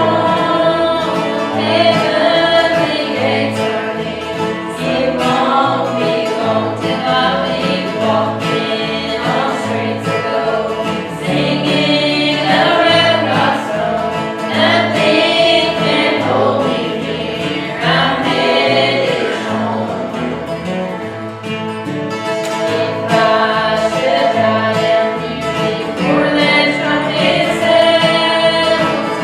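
Gospel song sung by several voices over instrumental accompaniment with a steady bass line.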